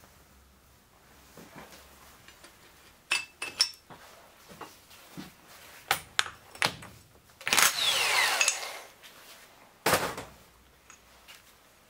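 A power wrench running in one short burst, about a second long, to undo the clutch basket nut on a Yamaha XT600 single-cylinder engine; its pitch falls as it winds down. Around it, clicks and clinks of metal tools and parts, and a sharp metallic knock near the end.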